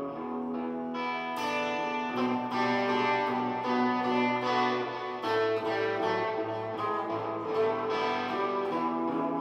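Guitar playing a blues tune, picked notes ringing out over held low bass notes.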